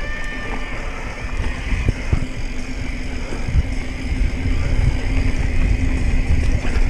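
Wind rush and dirt-trail rumble from a mountain bike riding fast downhill, with a few sharp knocks as the bike goes over bumps. The noise grows louder toward the end.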